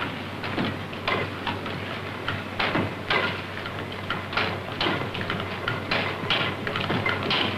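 Diesel's first experimental engine of 1893 turned over by a drive belt rather than under its own power: a mechanical clatter of irregular knocks, about one or two a second, over a steady low hum.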